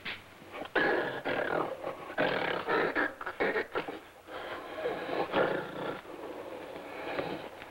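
A gorilla growling in a run of rough bursts, loudest in the first two-thirds and trailing off near the end.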